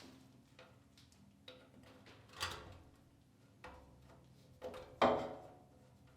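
A series of separate knocks and clunks from objects being handled and set down, about six in all, each with a short ring, the loudest about five seconds in.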